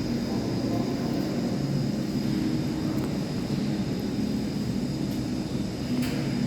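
Machinery in a water reservoir's machine room running steadily: a low, even hum with a thin high whine above it.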